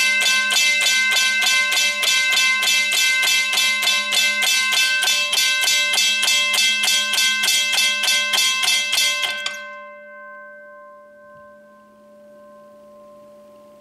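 Western Cullen Hayes mechanical railway crossing bell ringing: its electromagnet-driven hammer strikes the gong rapidly, about four strikes a second. After about nine and a half seconds the striking stops and the gong rings on, fading away.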